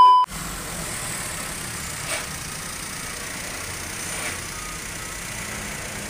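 Suzuki Karimun Wagon R's three-cylinder engine idling steadily through a newly fitted 3-1 header, with a stock muffler and an added resonator. It opens with a brief, loud test-tone beep.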